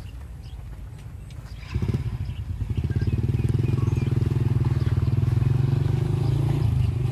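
A small engine starts up loud about two seconds in and runs steadily with an even low chugging.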